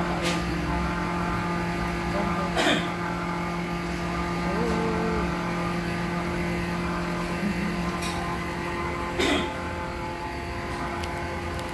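Steady machine hum inside a shop, made of several held tones over a low rumble, broken by a few brief knocks or clacks, the loudest two a quarter of the way in and about three quarters of the way through.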